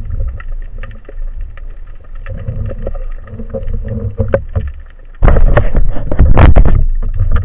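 Underwater ambience heard through a camera housing: a low rumble of moving water with scattered clicks. About five seconds in, a sudden loud rush of handling noise lasts about two seconds as the housing is brought against the diver's wetsuit.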